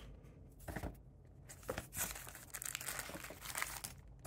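Unboxing handling noise: a soft nylon binocular case being lifted out of a cardboard box, with irregular quiet rustles and a few light clicks.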